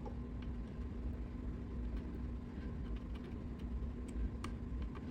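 Scattered faint clicks of soldering tools touching the circuit board, over a steady low hum.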